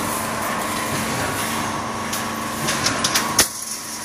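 Automatic fence mesh panel welding and bending machine running with a steady hum and a whine, while its gantry gripper carries a welded wire mesh panel. Near the end come a few sharp knocks, the last and loudest about three and a half seconds in, after which the running noise drops a little.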